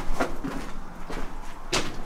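Footsteps crunching on loose limestone rubble, one step about every half second to second, the loudest near the end.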